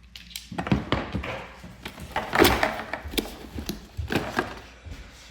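Packaging box and its contents being handled: irregular knocks, clicks and rustling, the loudest about two and a half seconds in.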